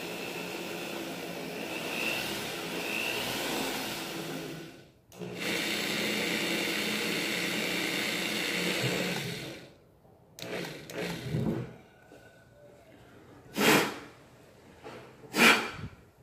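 Small handheld electric drill running steadily, boring the roll-pin hole through a revolver's steel front sight and barrel rib. It stops briefly about five seconds in, runs again for about four seconds, then stops. Near the end come two short, loud puffs of noise, louder than the drilling.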